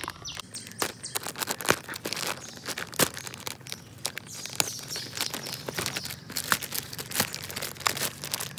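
Thin clear plastic packaging bag crinkling and rustling in the hands in irregular sharp crackles as a plastic toy motorbike is worked out of it.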